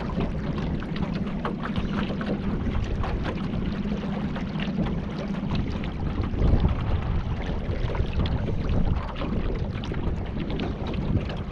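Wind buffeting the microphone over water moving and splashing around a kayak, with many small sharp splashes. A steady low hum runs underneath for about the first half, then drops away.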